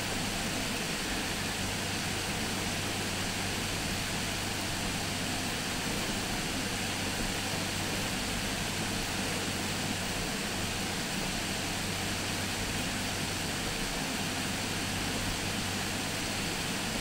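Steady background room noise: a constant low hum under an even hiss, with no speech and no distinct events.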